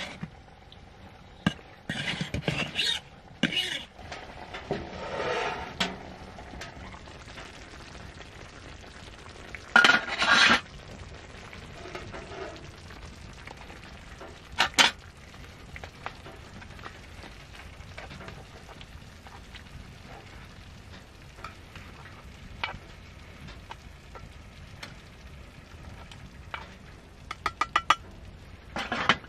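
Camp cookware being worked: a knife scraping through rice in a metal pan, then a spoon scraping stew out of a hot frying pan onto the rice, with knocks and clatters of pans and utensils and a quick run of taps near the end. A faint sizzle of the hot stew runs underneath.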